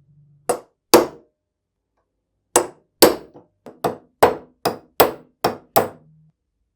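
Hammer blows on metal: two strikes, a short pause, then about ten more in quick succession, each ringing briefly.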